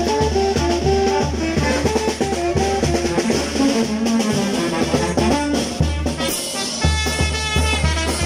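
Brass band music with drums and a steady beat; the horns move up to higher notes near the end.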